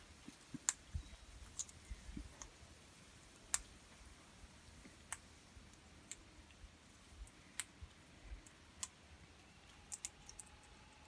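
Australian king parrot cracking seeds in its beak while feeding: sharp, short clicks at irregular intervals, about a second or two apart.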